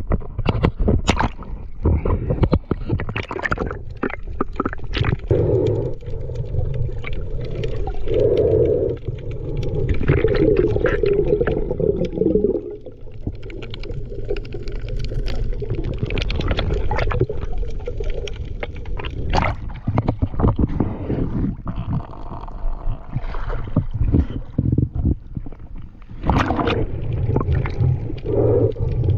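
Water gurgling and sloshing around an action camera at and just under the surface, with a low rumble and many scattered clicks and knocks.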